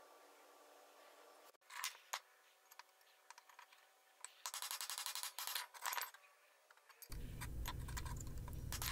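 Chisel striking the edge of a forge-welded steel canister billet to split the canister open: two single sharp knocks, then a rapid rattling run of metal-on-metal strikes about four and a half seconds in. A steady low noise with scattered clicks starts about seven seconds in.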